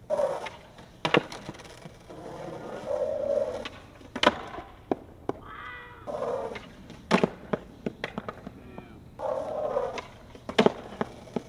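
Skateboard on asphalt during repeated kickflip attempts: wheels rolling, sharp cracks of the tail popping, and the board slapping down and clattering. The cracks come about five times, a few seconds apart.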